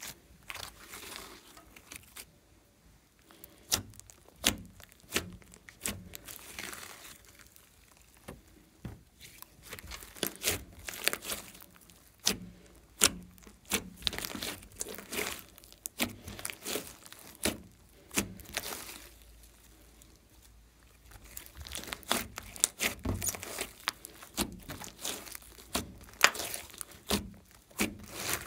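Glossy slime being kneaded, squeezed and stretched by hand: sticky squishing with many irregular sharp pops and clicks, broken by a few brief lulls.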